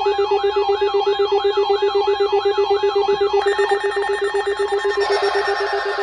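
Electronic alert tones sounding together: a rapidly pulsing steady tone with a warbling, siren-like sweep rising and falling about two and a half times a second. A higher steady tone joins about three and a half seconds in, and a hiss-like layer about five seconds in.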